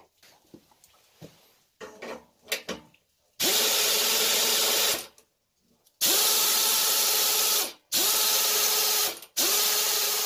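Compressed air released in four hissing blasts of one to two seconds each, with short gaps between them and a whistling tone that rises briefly as each blast opens. This is the air line of the restored air compressor being tried out. Light clicking and rubbing comes before the first blast.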